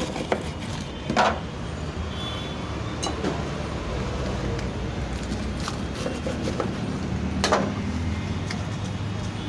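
Knife crunching through crisp, cornflake-coated fried spring rolls on a wooden chopping board, with a few sharp crunches and knocks, the loudest about a second in and near the end. A steady low rumble runs underneath.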